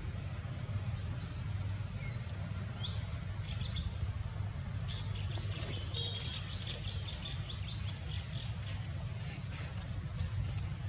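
Forest ambience: small birds give short, high chirps and whistles, scattered through and busiest in the middle, over a steady high insect buzz and a steady low rumble.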